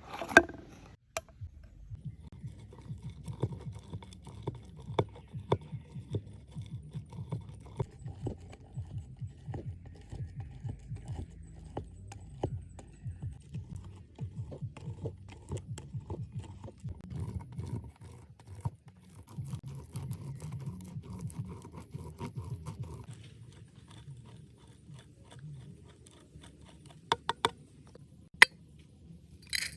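Irregular taps and knocks over a low rumble, with a few sharp, louder knocks near the end.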